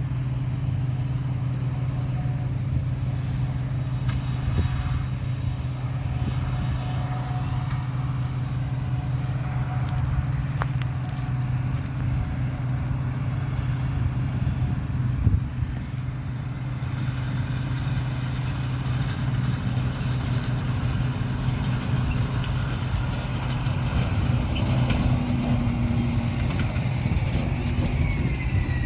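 Heavy diesel harvest machinery running steadily, a deep even engine drone, with a single short knock about fifteen seconds in.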